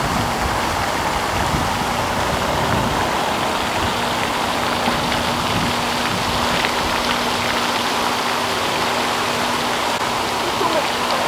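A steady rushing noise, even and unbroken, with a faint low hum underneath.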